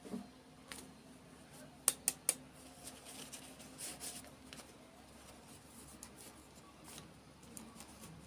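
Hands unboxing small toys: faint rustling and handling of the packaging, with three quick sharp clicks about two seconds in.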